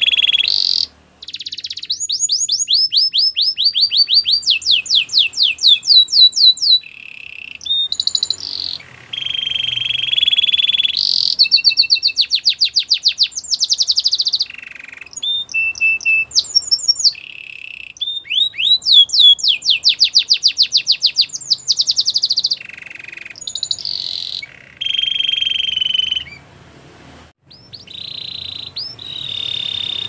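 Canary singing a continuous string of phrases. Steady high trills alternate with fast runs of repeated falling notes, several a second, with brief pauses between phrases.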